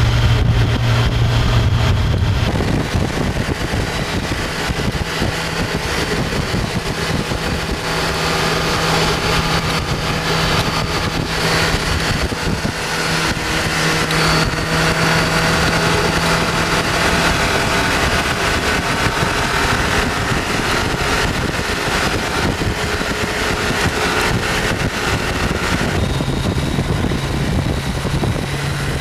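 Motorcycle engine running at road speed under a heavy rush of wind on the microphone, the engine note shifting in pitch a few times.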